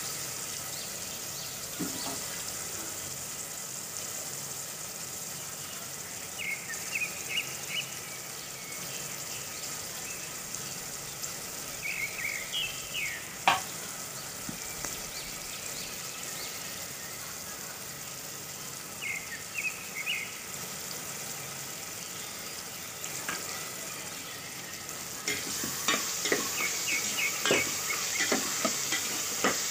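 Chopped onions and tomatoes sizzling in oil in a pressure cooker, a steady frying hiss. A single sharp tap comes about halfway through. Near the end the sizzle grows louder, with quick clicks and scrapes of a ladle stirring against the pot.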